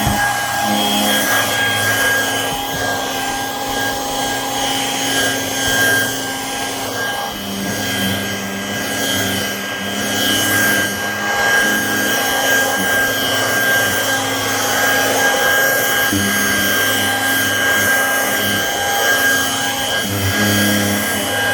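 Vacuum cleaner running steadily with a high whine while its nozzle is worked back and forth over fabric upholstery in dry vacuuming. A lower hum cuts in and out several times.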